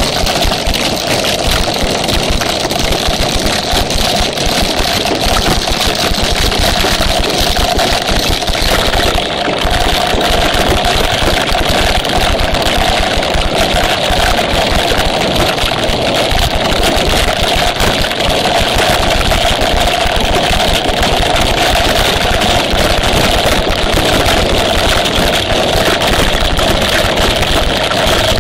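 Torrential rain pouring down, a loud, steady, dense hiss that does not let up.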